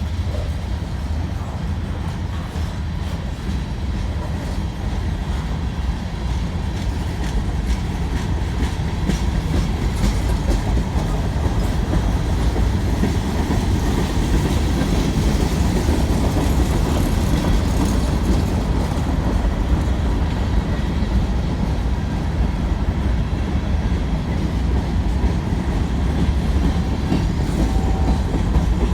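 CN freight train rolling past, a steady loud rumble of steel wheels on the rails with a faint clickety-clack running through it.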